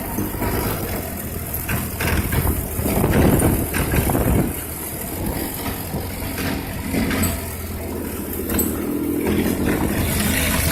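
ATV engine running steadily, louder for a second or two about three seconds in.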